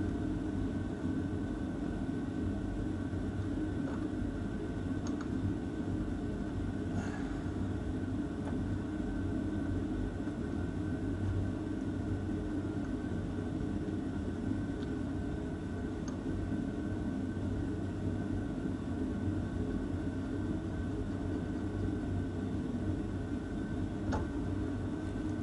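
Steady machine drone with a thin high whine running through it, and a few faint clicks about 4, 7, 16 and 24 seconds in.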